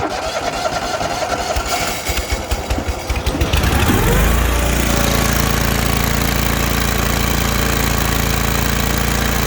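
A Snapper Z Rider's 27 hp Kohler Command Pro V-twin engine cranks on the starter for about three and a half seconds, catches and revs up, then runs steadily.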